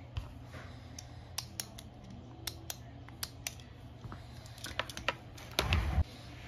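Scattered sharp plastic clicks and light taps as the pressure washer's white plastic switch housing and its cable are handled, then a louder knock and rustle lasting about half a second near the end.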